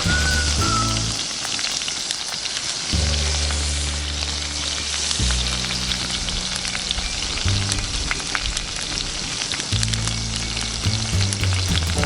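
A hamburger patty sizzling and spitting in a skillet: a dense, steady hiss peppered with small crackles. Background music with a slow bass line plays underneath.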